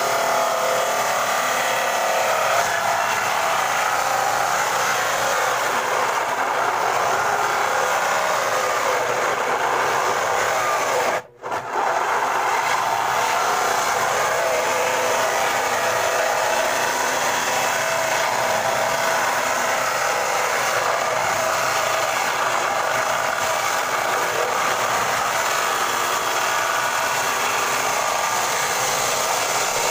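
Power saw ripping a thick wooden slab lengthwise, a continuous loud cutting noise as the slab is fed through. It drops out for under a second a little past a third of the way in, then carries on.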